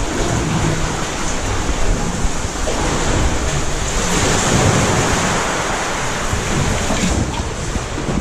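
Seawater surging and washing inside a sea cave: a steady rushing wash that swells a little about halfway through.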